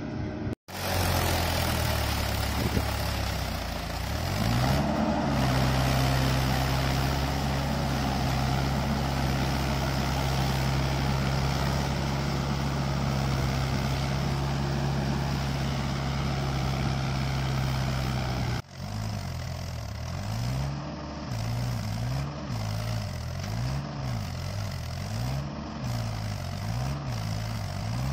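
Mahindra 575 DI XP Plus tractor's four-cylinder diesel engine running as it pulls a puddler through flooded paddy mud on cage wheels. The engine note steps up in pitch about four seconds in and holds steady. After a break about two-thirds through, it rises and falls about every second and a half.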